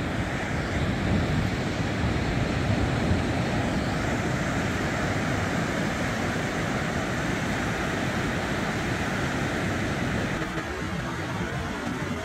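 Wind buffeting the microphone over the steady rush of breaking surf, easing a little near the end.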